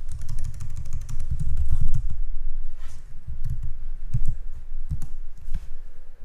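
Computer keyboard typing: a fast run of keystrokes for about the first two seconds, then single keystrokes spaced roughly half a second apart.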